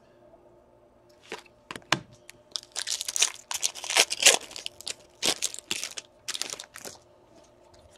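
Foil wrapper of an Upper Deck hockey card pack being torn open and crinkled by hand: a quick, irregular run of crackles and rustles that starts about a second in and stops near the end.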